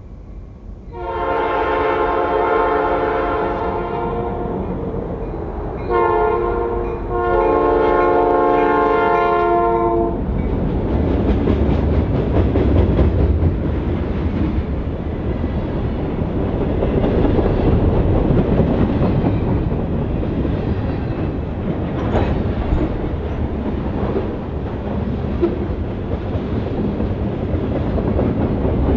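Horn of rebuilt Norfolk Southern GP38-2 diesel locomotives sounding a long blast, a short one and another long one. Then the loud rumble of the locomotives' non-turbocharged 16-cylinder EMD two-stroke diesels working hard, with clicking wheels as the train passes.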